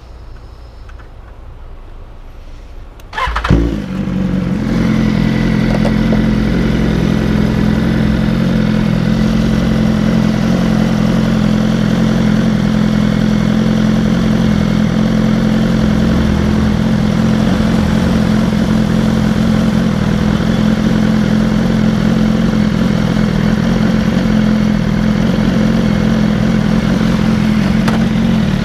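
Motorcycle engine starting about three seconds in, catching sharply, then idling steadily.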